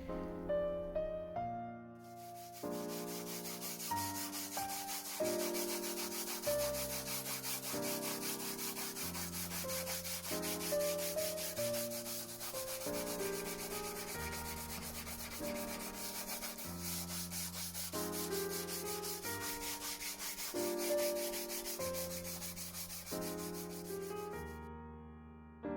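Sandpaper rubbing fast over the pitted metal body of an old hand plane, a steady rasping that starts a couple of seconds in and stops near the end, over gentle piano music.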